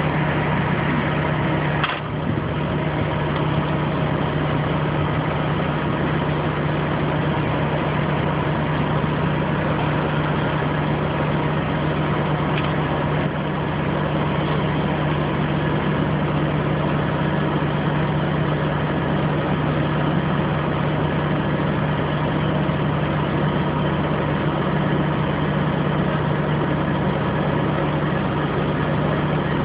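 Crane engine idling with a steady low drone while a load hangs from its lifting straps.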